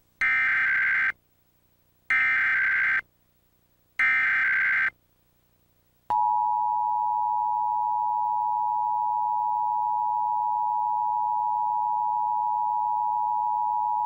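Emergency Alert System Required Monthly Test tones: three short bursts of SAME header data tones, each about a second long and a second apart, then the steady two-tone EAS attention signal (853 and 960 Hz) starting about six seconds in and holding for about eight seconds. These tones announce an incoming alert before the spoken message.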